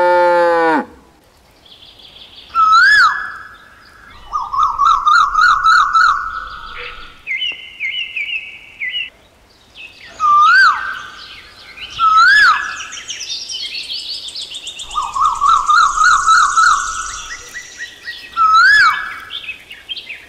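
A cow's moo falls in pitch and ends about a second in. Birds then call: loud rising whistled notes, about four of them, and stretches of rapid trilling in between.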